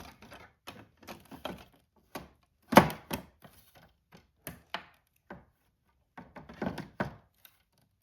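Toy barn pieces knocking and clicking together as the barn front is pushed and worked into the floorboard, a stiff fit that won't go in; a run of irregular knocks, the loudest about three seconds in and a cluster near the end.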